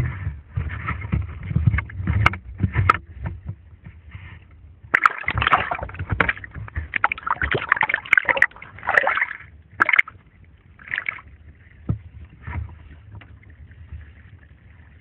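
Sea water splashing and sloshing against a camera at the surface as it dips under and comes back up, in irregular bursts with sharp knocks over a low rumble. The splashes thin out and grow quieter over the last couple of seconds.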